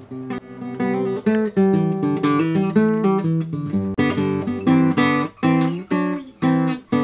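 Acoustic guitar theme music, a run of plucked and strummed notes.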